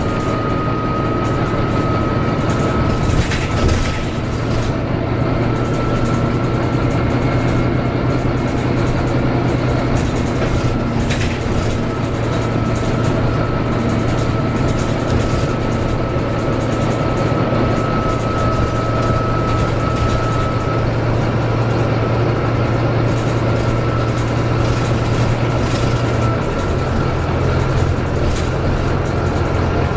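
Volvo B9TL double-deck bus with its 9.4-litre six-cylinder diesel, heard from inside the lower deck while driving: a steady engine drone with a thin high whine over it. The engine note steps about four seconds in and again near the end as the automatic gearbox shifts.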